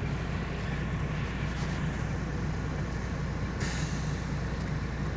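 Heavy truck's diesel engine running steadily, heard inside the cab as a low rumble while the truck rolls downhill on a gravel road. A steady hiss joins in about three and a half seconds in.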